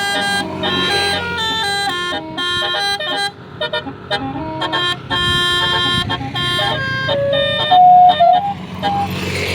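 Bus 'telolet' multi-tone horn playing a rapid stepping tune of short horn notes, then a few longer, lower notes near the end, the loudest of them about eight seconds in. A steady engine hum runs underneath.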